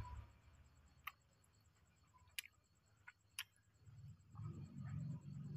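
Near silence broken by four faint, sharp clicks spread over the first few seconds, then a low, indistinct murmur starting about four seconds in.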